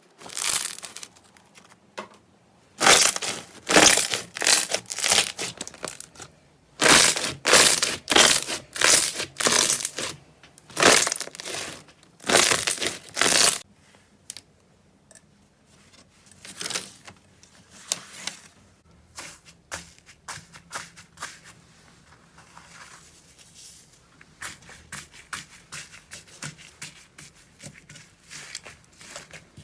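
Slime being squeezed and pressed, crunching and crackling in strokes about a second apart, then fainter, quicker crackles in the second half.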